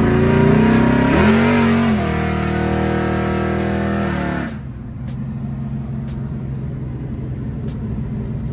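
Car engine revving hard under acceleration. Its pitch climbs over the first second and holds high, then drops off suddenly about four and a half seconds in and settles to a lower, quieter steady run.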